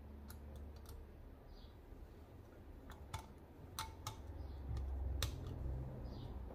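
Scattered small metallic clicks and ticks of screws and a screwdriver being worked into an Edelbrock 1406 carburettor's top cover, a few at the start and a cluster about three to four seconds in. A low rumble swells in the second half.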